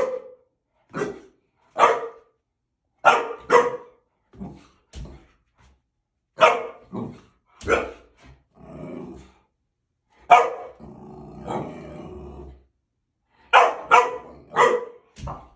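Young boxer dog barking at its own reflection in a mirror: short, sharp barks, often in quick pairs or threes. A low growl runs for about two seconds past the middle.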